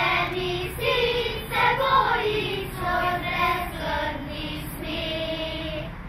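Children's choir singing a song phrase by phrase, the last phrase closing on a held note near the end.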